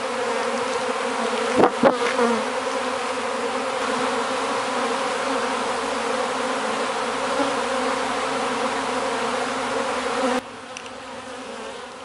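A swarm of honey bees buzzing in a steady, dense hum, with two brief louder swells just under two seconds in. The buzz drops suddenly to a quieter level about ten seconds in.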